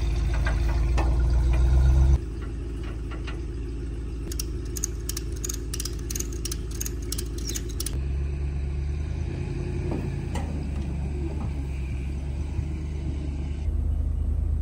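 Ram pickup truck's engine idling steadily, its level jumping abruptly a few times. A quick run of light clicks comes in the middle.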